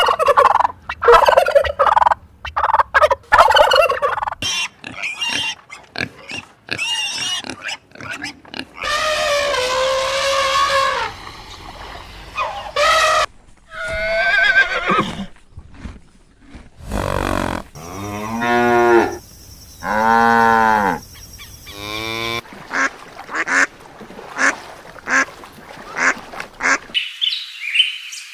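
A run of different animal calls, one short clip after another: a stretch of quick repeated calls, several single long calls, a group of loud calls that rise and fall in pitch, and high chirping near the end.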